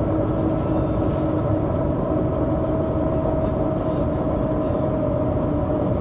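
1998 MAN NG 312 articulated city bus under way: a constant drone of engine and running noise with a steady whine over it.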